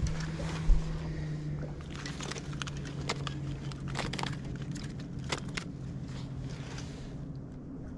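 A landed bass being handled and unhooked on a boat deck: scattered clicks and light knocks from the fish, hook and rod, with a dull thump about a second in. Under it runs a steady low hum that drops slightly in pitch a couple of seconds in and fades near the end.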